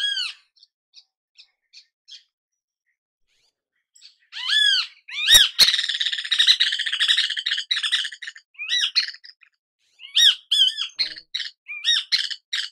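Great kiskadee calling: a call of arched notes, a few faint short notes, then a pause. After that comes a loud run of repeated arched notes and harsh chattering, broken by a couple of sharp clicks, and it keeps calling to the end.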